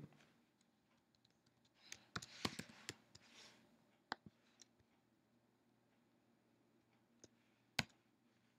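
Faint computer keyboard typing and mouse clicks: a quick run of key presses about two seconds in, then a few single clicks spaced apart.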